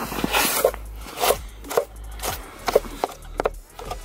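A brush sweeping snow off a beehive's bottom entrance: a scraping swish at the start, then a series of short scrapes and knocks against the hive.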